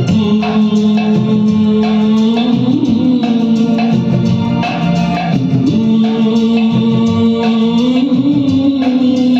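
Karaoke backing track of a Hindi film song playing, with a steady beat and long held low notes.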